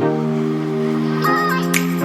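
Instrumental background music: sustained chords that change about halfway through, with a light percussive tick near the end.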